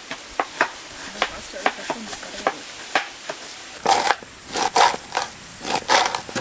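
Knife chopping onions on a cutting board: scattered single cuts at first, then from about four seconds in a quicker run of louder, crunchy strokes.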